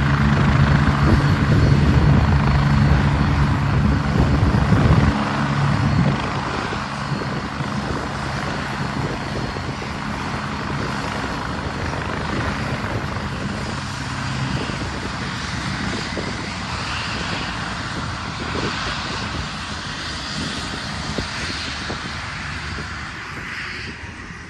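AgustaWestland AW109S Grand twin-turbine helicopter running on the ground with its main rotor turning: a steady low engine hum under turbine hiss. The sound drops in level about five and six seconds in, after which the low hum fades and a quieter, higher hiss carries on.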